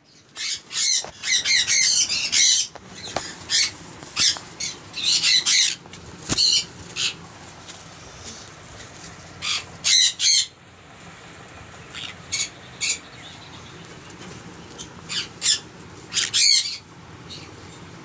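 Conures (small parrots) squawking in harsh, loud calls. A quick run of squawks fills the first few seconds, then single and paired squawks come scattered until near the end.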